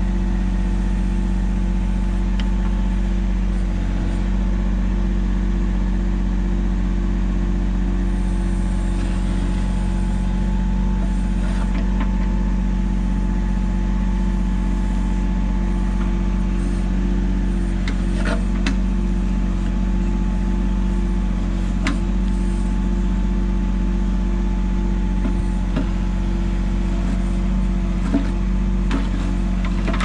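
Mahindra 1626 compact tractor's diesel engine running at a steady speed while it powers the backhoe, with a few faint knocks.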